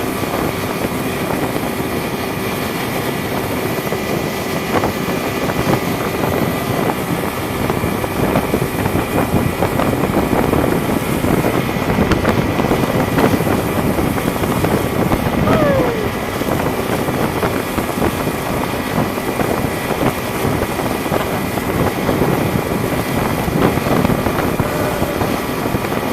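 Motorboat engine running steadily, with wind rushing over the microphone.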